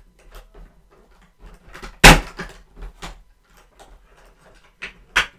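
Small clicks and taps from a compartment of a rock-and-mineral advent calendar being opened and the stone inside taken out, with one sharp knock about two seconds in and two more clicks near the end.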